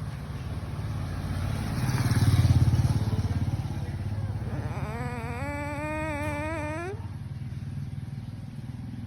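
A motor vehicle engine rumbling, swelling to its loudest about two and a half seconds in and then fading back. From about five seconds a wavering tone rises in pitch and cuts off suddenly near seven seconds.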